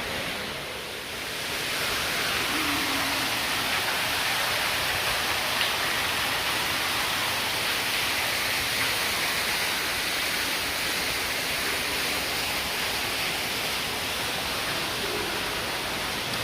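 Steady rushing of falling water, growing louder about a second and a half in and then holding even.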